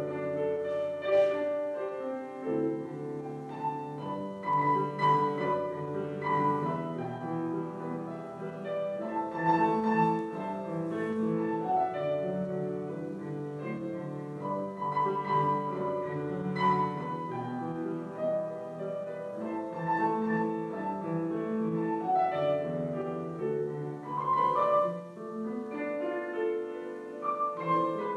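Piano playing classical-style music, a melody over held chords.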